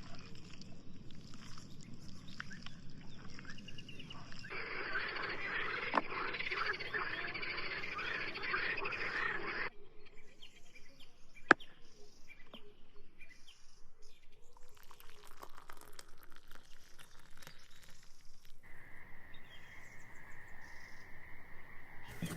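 Frogs croaking in a steady pulsing rhythm. Over it, a dense hiss lasts several seconds in the middle, and there are two sharp clicks, one of them loud.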